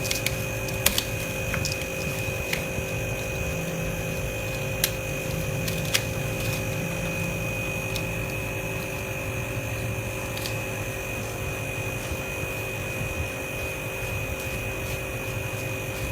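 Steady machine hum with a constant high whine, broken by a few light clicks.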